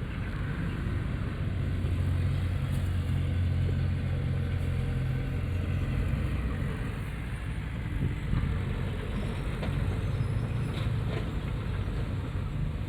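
Heavy diesel engine of earthmoving machinery, a bulldozer or dump truck, running steadily with a continuous low rumble.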